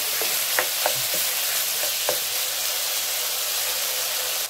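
Marinated beef cubes sizzling steadily as they sear in a wok over high heat. In the first couple of seconds a wooden spatula stirring them gives a few sharp taps and scrapes against the pan.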